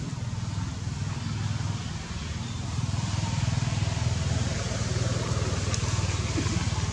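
A vehicle engine running steadily, a low pulsing rumble that grows a little louder about three seconds in.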